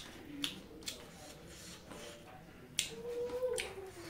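Close-up eating sounds of a man eating rice and mutton by hand: a few sharp, irregular smacking clicks as he chews, with a brief humming tone about three seconds in.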